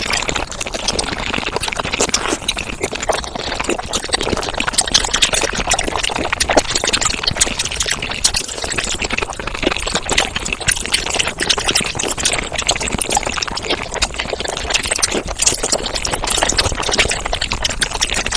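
Mukbang eating sounds sped up about five times: a dense, steady stream of rapid wet chewing, smacking and slurping clicks.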